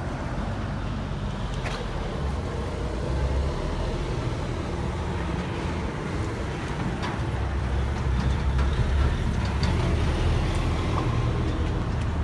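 Steady low engine rumble throughout, with a few faint clicks.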